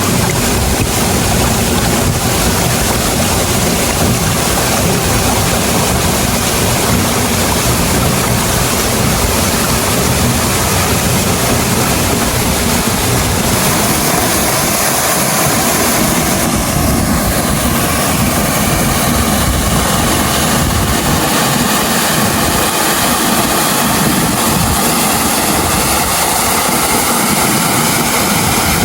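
Waterfall roaring steadily as water pours down the rock, a loud, even rush of water.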